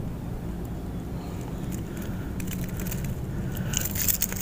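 A steady low rumble, with small sharp clicks and rattles that thicken into a cluster near the end, from handling a freshly landed fish and its lure on the pavement.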